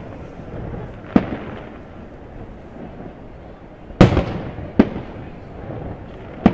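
Aerial fireworks shells bursting overhead: four sharp bangs, the loudest about four seconds in, each trailing off in echo over a steady low rumble.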